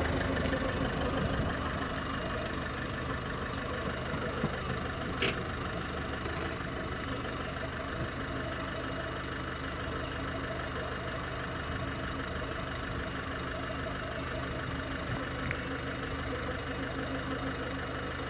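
An engine idling steadily, with a single sharp click about five seconds in.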